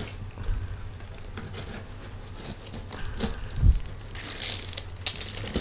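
Cardboard shipping box being cut and pulled open by hand: rustling, scraping and tearing of cardboard and packing tape, with a dull thump a little past the middle and a couple of sharper rips near the end.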